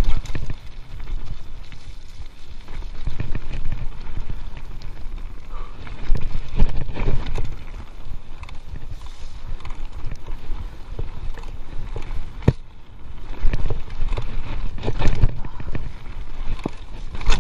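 Giant Stance mountain bike riding down a rough, wet dirt singletrack: a constant low rumble of tyres on the trail, broken by frequent clattering knocks and rattles as the bike hits bumps.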